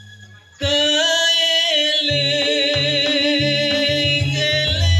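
Music played loud through a large outdoor sound system being sound-checked. It starts suddenly about half a second in with a held melody line, and deep bass notes come in about two seconds in.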